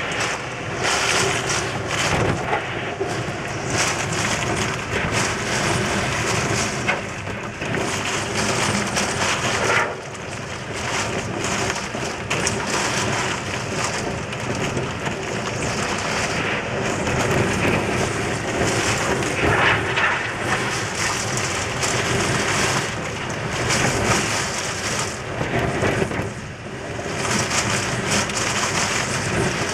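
Typhoon wind and heavy rain, a dense steady roar that swells and eases in gusts, with wind buffeting the microphone.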